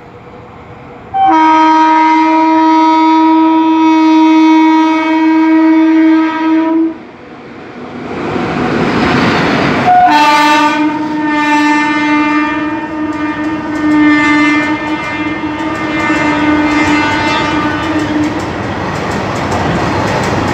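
Electric locomotive hauling a freight train, sounding its horn in two long blasts as it passes at speed: one of about six seconds, then a rush of noise as the locomotive goes by, then a second blast of about eight seconds. After that the freight wagons clatter steadily over the rail joints.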